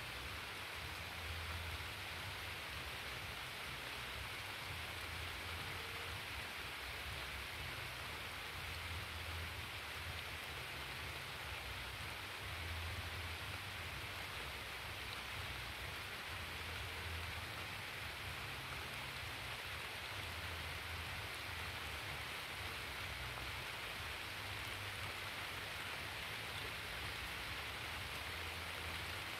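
Steady, even hiss of water, either rain or water rushing over the dam spillway, with a low rumble underneath that swells and fades every few seconds.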